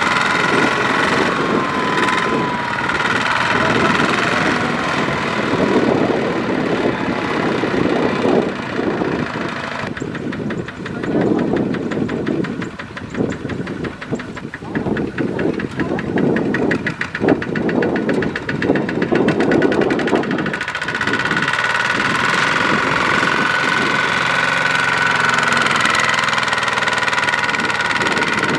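Single-cylinder diesel engine of a Kubota RT140 walking tractor running hard under load as its wheels spin in the mud, trying to pull a sack-laden rice trailer free. The engine runs steadily, then rougher and more uneven for a stretch in the middle.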